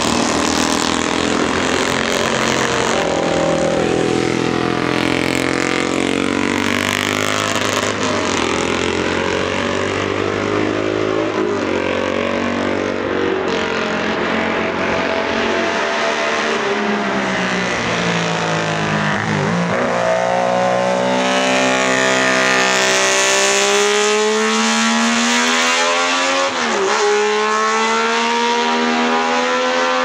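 Historic racing motorcycle engines revving hard as they climb a hill-climb course. The overlapping engine notes rise and fall in pitch, with two sharp dips in the second half.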